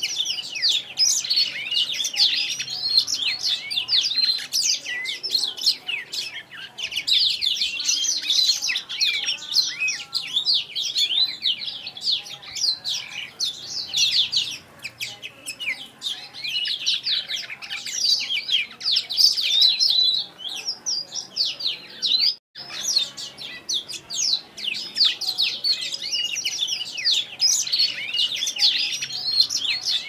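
Young black-throated canary singing a fast, continuous twittering song of rapid high chirps and trills, broken by a brief gap about two-thirds of the way through.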